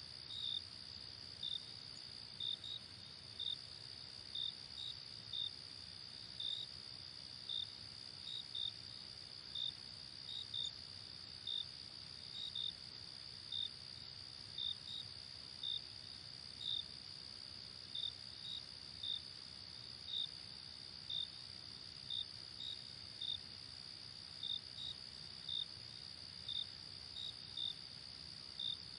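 Night-time crickets: a steady high-pitched insect trill with short chirps over it, about one to two a second at an uneven pace.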